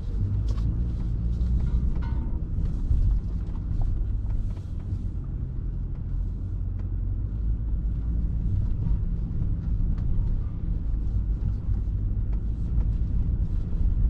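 A vehicle driving along a road: a steady low engine and road rumble, with scattered light ticks and knocks over it.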